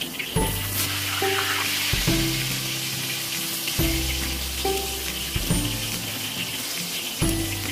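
Breaded pork neck frying in hot oil, a steady crackling sizzle as the coating crisps. Background music with held bass notes plays underneath.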